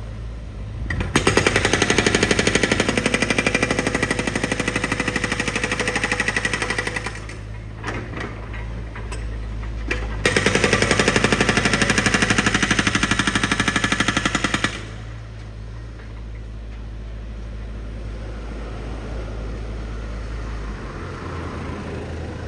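Construction breaker drill hammering rapidly in two long bursts, the first about six seconds and the second about four and a half, with a short pause between. A steady low engine hum runs underneath throughout.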